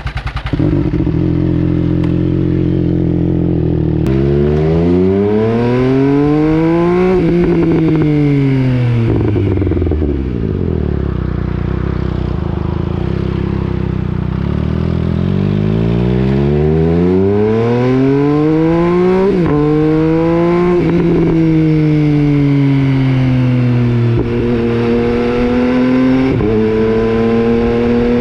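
2019 MV Agusta Brutale 800's inline three-cylinder engine through an FM Projects aftermarket exhaust, just after starting. It idles at first, then the engine speed climbs slowly and falls back several times, with a stepped climb near the end.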